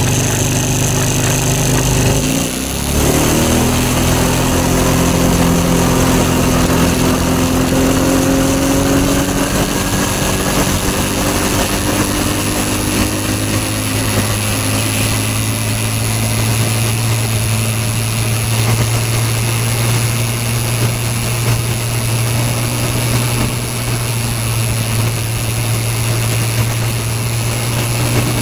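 ATV (quad bike) engine idling, then a brief dip about two and a half seconds in before the engine note climbs slowly as the quad pulls away. It then settles into a steady run while riding.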